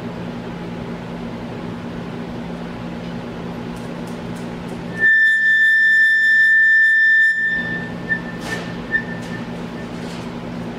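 Bridgeport Series 1 vertical milling machine running with a steady hum. About five seconds in, a loud, high, steady whistling tone sounds for about two and a half seconds, then a few faint pings at the same pitch.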